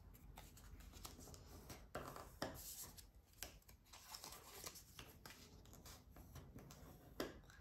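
Faint rustling and scraping of cardstock being folded back and forth and creased with a bone folder, in short scattered strokes.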